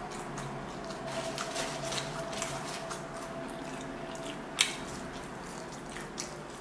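Close-up chewing and wet, squishy mouth sounds from eating juicy fried chicken nuggets, with many small irregular smacks and one sharper click about four and a half seconds in.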